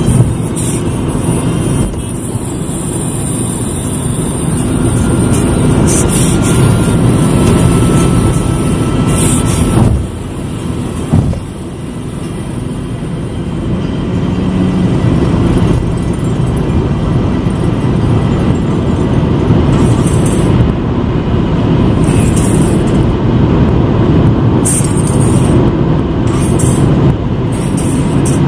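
Steady road and engine noise of a car travelling at expressway speed, dipping briefly about ten seconds in.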